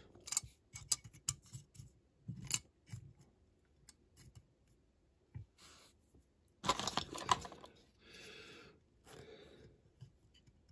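Small plastic model parts being handled and pressed into a diecast metal car body: scattered sharp clicks and taps, with a longer scraping rustle about two-thirds of the way through.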